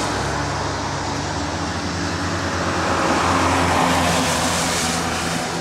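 A motor vehicle driving slowly through a flooded street: its engine runs steadily under a rushing wash of water, growing louder to a peak about two-thirds of the way through and then easing.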